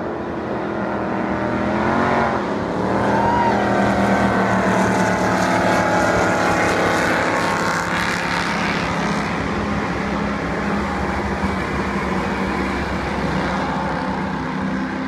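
High-performance racing powerboats at full throttle, their engines running loud and steady as they speed past. The engine note rises and shifts in pitch about two to three seconds in.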